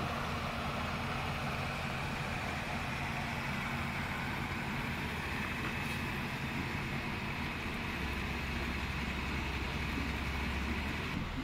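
Roots air blower running steadily: a continuous low machine hum with an even hiss above it, the blower supplying aeration air to a sewage treatment tank.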